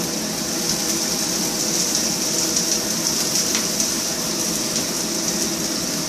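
Garlic and white onions frying in coconut oil in a pan: a steady sizzling hiss with scattered crackles.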